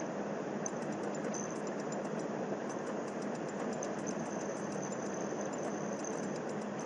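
Small DC motor running steadily at raised speed under potentiometer speed control, a constant hum with faint irregular high ticking.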